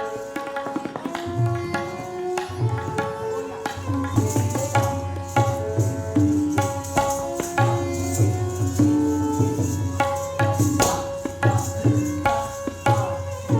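Instrumental folk music: a melodic instrument plays held and moving notes over drum strokes. Deep drum beats come in about a second in and become steady from about four seconds in.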